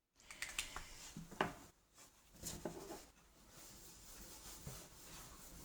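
Quiet room with a few faint scattered clicks and light rubbing or rustling sounds.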